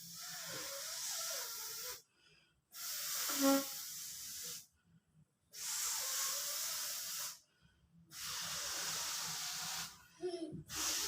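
Air hissing into a giant balloon as it is inflated. It comes in a run of bursts about two seconds long, with pauses of about a second between them. There is a brief rubbery squeak about three and a half seconds in.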